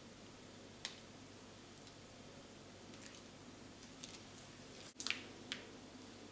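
Faint crinkling and sharp clicks of a plastic piping bag squeezed in the hands as stiff butter-cookie dough is forced through a metal star tip: one click about a second in, a few soft crackles, then a cluster of louder crackles about five seconds in.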